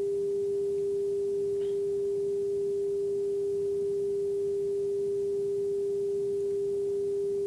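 A steady 400 Hz pure sine tone played from a test sound file. It holds one unchanging pitch and cuts off abruptly at the end.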